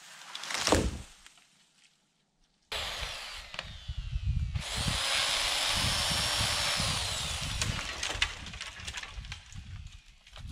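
Chainsaw cutting into a tree while clearing land: after a short loud crack about a second in, the saw runs at full throttle through the cut from about three seconds in. The revs drop off a little after halfway, with wood crackling and snapping.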